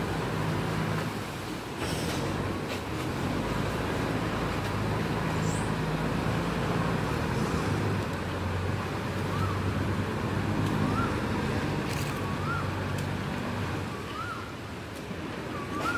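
Canal taxi boat engines running with a low steady hum over choppy water splashing against the canal wall. From about ten seconds in, a short rising-and-falling chirp repeats roughly once a second.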